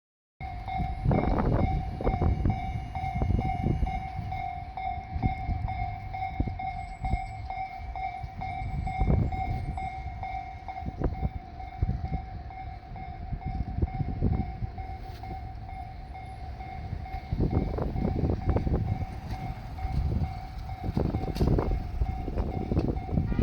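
A Japanese level-crossing warning bell rings steadily and repeatedly while a diesel train rumbles past with irregular low knocks and clatter from the wheels.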